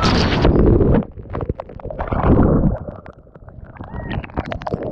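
Water splashing and sloshing close to the microphone, in two loud, muffled surges followed by scattered small knocks.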